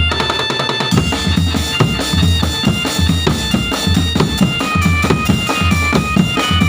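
A drum band playing a tune: a reedy melody on wind instruments, moving in steps, over a steady bass-drum beat and other drums.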